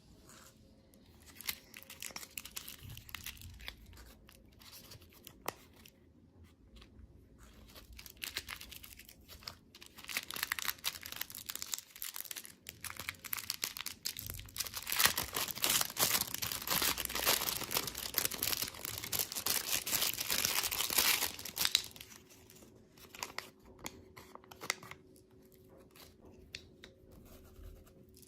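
Candy packaging being torn open and crinkled by hand: crackly rustling and tearing that builds to its loudest, densest stretch a little past the middle, then thins to scattered crinkles.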